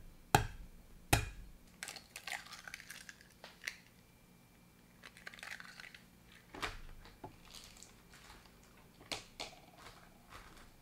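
Eggs being cracked on the rim of a pot: two sharp taps about a second apart, then crackling of the shells as they are pulled open, and several more knocks and clicks later.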